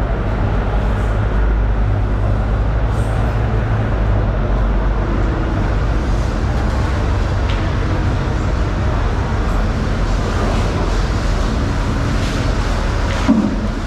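Steady low mechanical rumble and hum of background noise, with a brief louder sound near the end.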